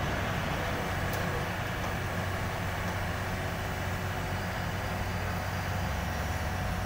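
Mini excavator's diesel engine running steadily under load as its arm lifts a portable air compressor hung on a chain.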